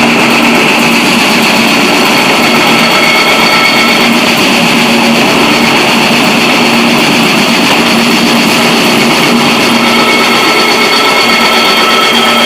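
Grain crushing roller mill running steadily: a loud, even mechanical noise with a constant hum and a high whine held at one pitch.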